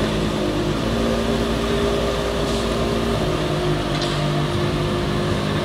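Ferrari 599 SA Aperta's V12 engine running at low revs as the car creeps along at walking pace. The engine note steps down to a lower pitch about three seconds in.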